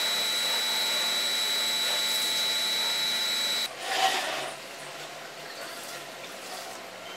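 Electric pressure washer running with a steady high whine and the hiss of its spray, cutting off abruptly after a few seconds. A brief louder rush of water follows, then quieter running water.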